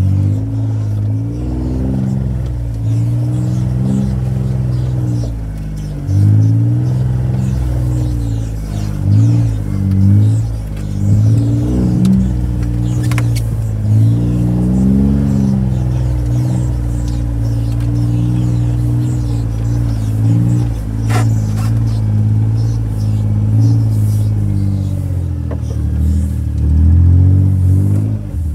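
John Deere Gator utility vehicle's petrol engine running under load while driving off-road, its speed rising and falling again and again as the throttle is worked. Two short sharp knocks come through, one a little before the middle and one past it.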